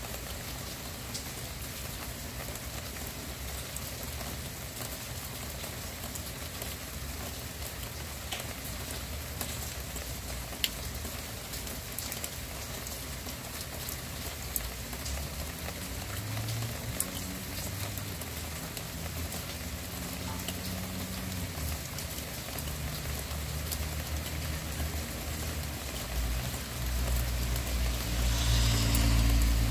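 Steady rain falling: an even hiss with scattered sharp drip ticks. A low rumble comes in during the second half and builds to its loudest near the end.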